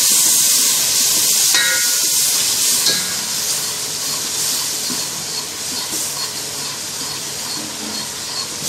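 Sliced mushrooms sizzling in a stainless steel pan over high heat, a steady hiss of frying and steam that eases slightly over the seconds.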